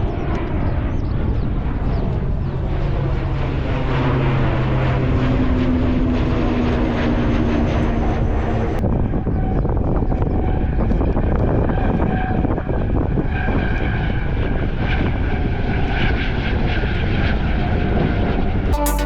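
Loud, continuous engine noise of an airliner taking off close by at the runway's departure end, its pitch shifting as it goes. The sound changes abruptly about nine seconds in.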